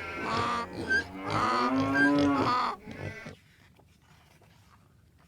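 Farm animal calls, several overlapping, played as a sound effect; they stop about three and a half seconds in.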